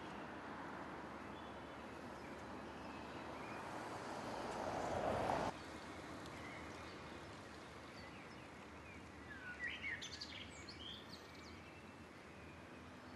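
Quiet outdoor town ambience: a steady faint hum, with a sound that swells and then cuts off abruptly about five seconds in. A few short bird chirps come about ten seconds in.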